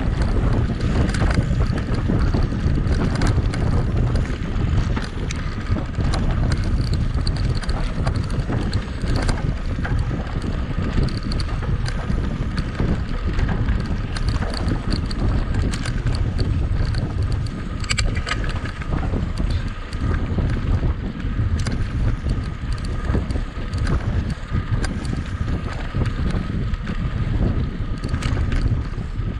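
Wind buffeting the microphone of a mountain bike's camera while riding at speed, over the tyre noise and scattered clicks and rattles of the bike on a dirt trail.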